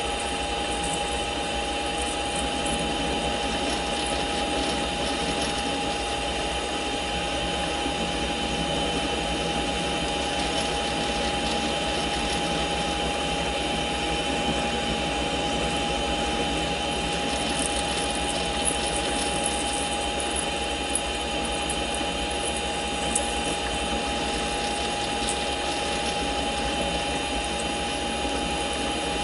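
Mini lathe running steadily with a constant whine while a parting blade slowly cuts off a 1-1/4 inch 1018 steel rod. A few faint high ticks come about two-thirds of the way through.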